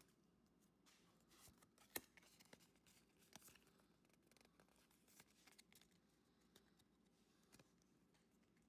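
Near silence with faint, scattered clicks and taps from Pokémon trading cards being handled and sorted out of a freshly opened booster pack, with one sharper tap about two seconds in.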